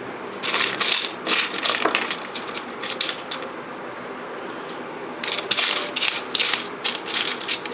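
Small plastic model-kit parts being handled, clicking and rattling in two bouts of quick clicks, the first about half a second in, the second from about five seconds in.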